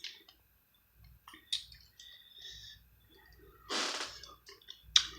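Close-up eating and crab-picking sounds from a seafood boil: scattered clicks and cracks of crab shell and wet squishing as meat is pulled out. There is a louder noisy rush a little under four seconds in and a sharp crack near the end.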